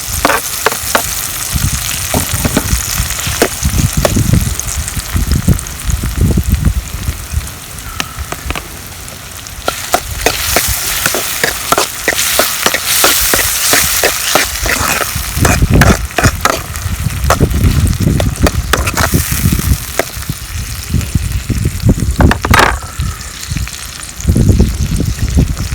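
Tomatoes and onions frying in ghee in a kadai, a steady sizzle, with a spatula clicking and scraping against the pan as they are stirred.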